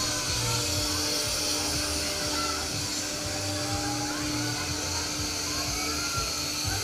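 Wind rushing over the microphone of an on-ride camera on a spinning fairground ride, a steady hiss-like rush, with fairground dance music's bass faintly underneath.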